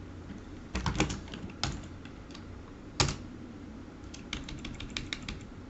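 Typing on a computer keyboard: a few keystrokes about a second in, a single hard keypress near the middle, then a quick run of keystrokes toward the end, over a faint steady hum.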